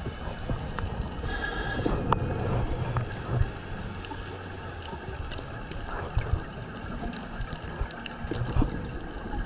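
Underwater ambience heard through a dive camera's housing: a steady muffled wash of water with low rumbling and scattered faint clicks, and a brief hiss about a second and a half in.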